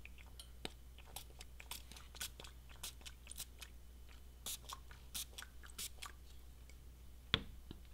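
Finger-pump spray bottle spritzing solvent-based surface prep onto silicone rubber and a plastic block: a quick string of many short sprays, some louder than others, then a light knock near the end as the bottle is set down.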